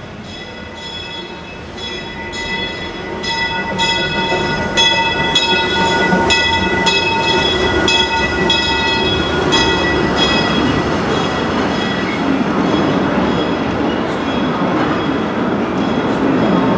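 Disneyland Railroad steam locomotive crossing a steel truss bridge overhead. Its bell rings steadily, about one stroke every two-thirds of a second, and stops about ten seconds in. The engine and its passenger cars rumble across the bridge, growing louder over the first few seconds.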